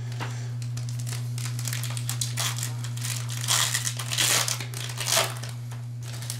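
Foil trading-card pack wrappers crinkling as they are handled and opened, in irregular bursts that are loudest a little past halfway. A steady low hum runs underneath.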